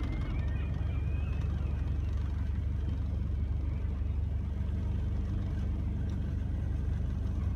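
Macwester Seaforth sailing yacht's inboard engine running steadily as a low, even drone while the boat motors slowly ahead.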